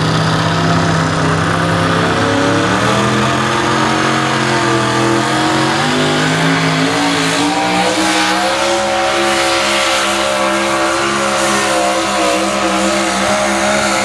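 Two-wheel-drive pulling truck's engine running flat out under load as it drags the weight-transfer sled down the track. Its pitch dips early on and then wavers, before the engine lets off right at the end of the pull.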